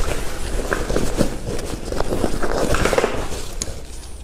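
Padded seat cover being pulled off a plastic high chair: fabric rustling and rubbing against the frame, with scattered small clicks and knocks from the straps and plastic parts.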